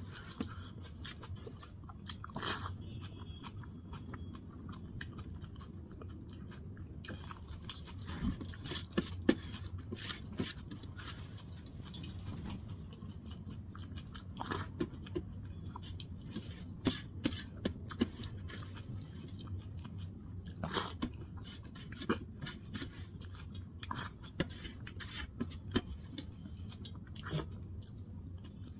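A person eating soft rice and dal by hand: chewing and wet mouth sounds, with fingers squelching the food and scraping it across a steel plate, heard as many scattered short clicks over a steady low hum.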